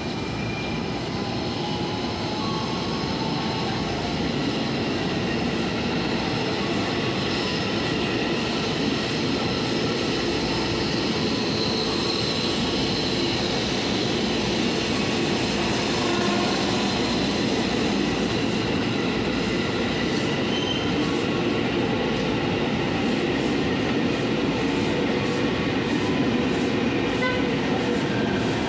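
KRL Commuterline electric commuter train running past close by, its wheels rumbling steadily on the rails. In the later part come repeated clicks over the rail joints.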